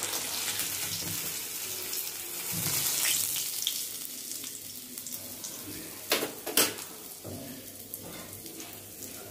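Hot oil sizzling in a kadai around a semolina-coated fish piece, the hiss dying down after about four seconds as the fried piece is lifted out. Two sharp metal clicks from the tongs a little past six seconds.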